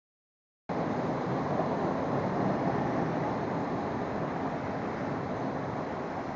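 Rush-hour traffic on a rain-soaked street: a steady hiss of tyres on wet pavement mixed with rain. It starts abruptly after about a second of silence.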